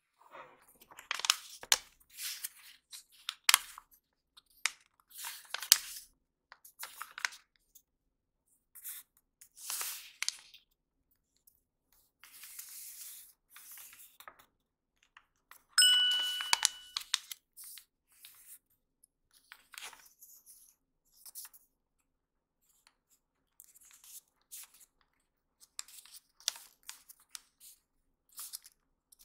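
Origami paper being folded and creased by hand: irregular rustles, crinkles and scrapes as fingers press and run along the folds, with pauses between. About sixteen seconds in there is a brief ringing ding.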